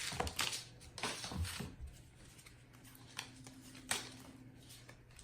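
Soft rustling and light clicks of trading cards and a foil pack wrapper being handled. The sounds cluster in the first two seconds, with a couple of sharper clicks later, over a low steady hum.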